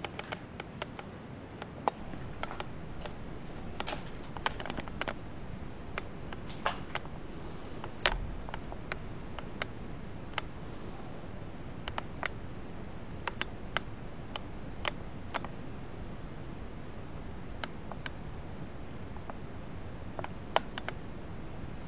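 Irregular sharp clicks and light ticks, a few to several a second in clusters, from a handheld camera being handled while someone moves through a quiet cellar, over a steady hiss.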